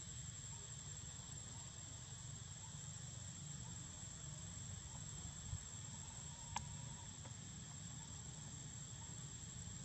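Steady high-pitched drone of insects, faint, over a low outdoor rumble, with a single sharp click a little past the middle.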